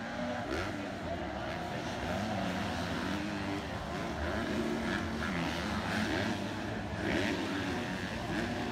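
Motocross bike engines revving, the pitch rising and falling again and again as the riders work the throttle and shift gears on the track.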